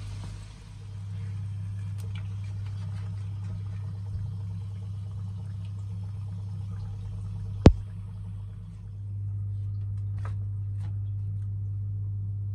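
Faint sizzling of donuts deep-frying in hot oil over a steady low hum. The sizzle fades in the second half, and there is one sharp click a little past the middle.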